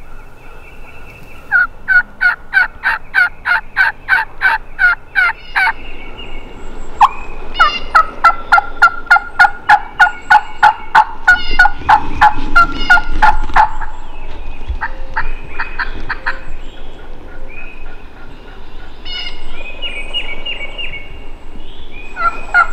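Wild turkey hen yelping: a loud, even run of about ten yelps starting a couple of seconds in, then a longer, faster run of yelps, followed by fainter scattered calling near the end.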